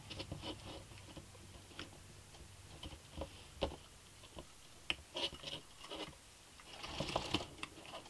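Scattered small clicks, taps and rattles of hands handling a PWK slide carburetor's top cap, slide spring and throttle cable while fitting them together, busier about seven seconds in.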